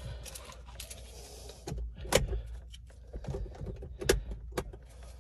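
Keys and remote fobs jangling and clicking as they are handled inside a car, with sharp clicks about two seconds and four seconds in.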